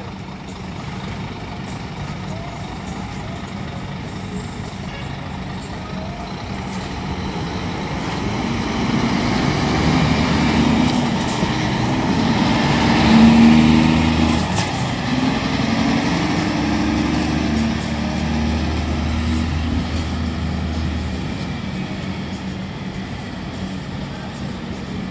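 Scania P360 tractor unit's DC11 11-litre six-cylinder diesel running as the truck drives past at low speed, growing louder as it comes close about halfway through, then holding steady and easing off as it moves away.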